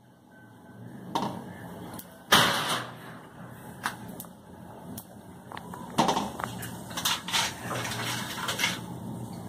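Rice papad frying in hot oil in a wok, a steady sizzle, with a loud metal clank of the wire-mesh strainer against the pan about two seconds in and several lighter clinks later.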